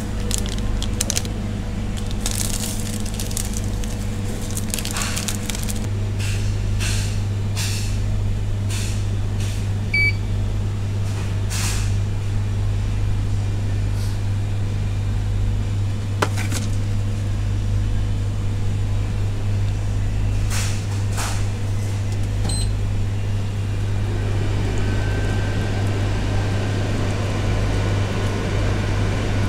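Steady hum of the self-cooking ramen station's machinery, with crinkling and small clicks from seasoning packets over the first dozen seconds. Near the end, hot water runs from the station's dispenser nozzle into the cardboard pot of instant noodles.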